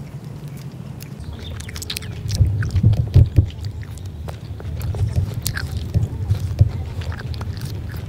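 Close-up eating of soft, ripe jackfruit bulbs: chewing, biting and wet mouth smacks, coming irregularly and loudest about three seconds in.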